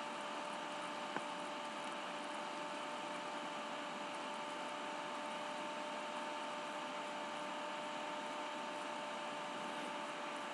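Room tone: a steady hiss with a constant two-note electrical hum, and a single short click about a second in.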